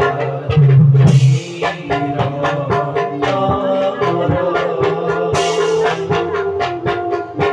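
Live Bhaona dance music from the accompanying ensemble: quick, dense drum strokes under a held keyboard melody, with two cymbal crashes, about a second in and again past the five-second mark.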